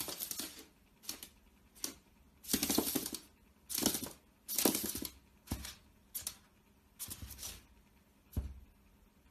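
Bearded dragon's claws scratching and scrabbling against a mirror and a laminate floor, in about ten short, irregular bursts.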